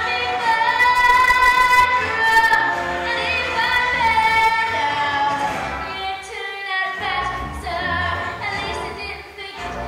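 A young girl singing solo into a microphone over instrumental accompaniment, holding long notes with a slight vibrato. The accompaniment drops out briefly about six seconds in.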